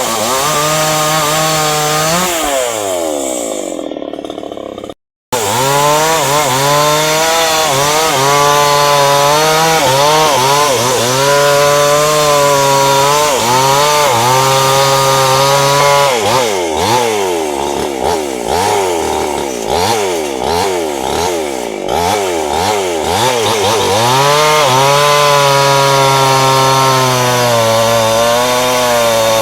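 Chainsaw cutting into a hardwood trunk, the engine pitch repeatedly dipping under load and climbing again as the chain bites and frees in the cut. The sound drops out completely for a moment about five seconds in, then resumes.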